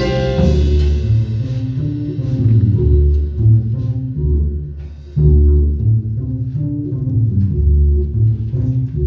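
Live jazz: the full band's loud passage breaks off at the start, leaving the upright double bass playing a slow phrase of low plucked notes with light piano and drums behind it.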